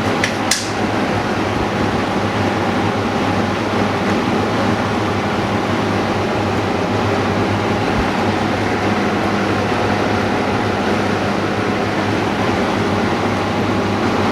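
Steady hum and hiss of running machinery, with a sharp click about half a second in.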